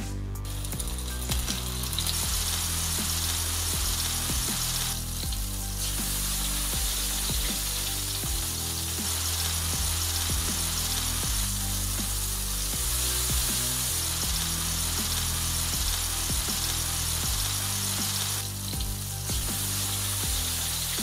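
Food sizzling in a hot frying pan, a steady hiss that drops out briefly twice, over background music with a stepping bass line.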